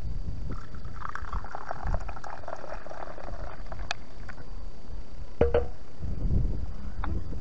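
Coffee poured from a thermos flask into a wooden kuksa cup, a splashing stream for about three seconds, over a low rumble of wind on the microphone. A short sharp sound comes about five and a half seconds in.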